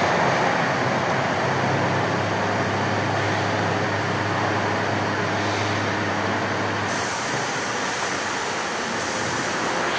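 Linear resistance seam welding machine running as its wheel electrodes weld along a stainless steel tank shell: a steady low hum over a broad hiss. The hum weakens about seven seconds in.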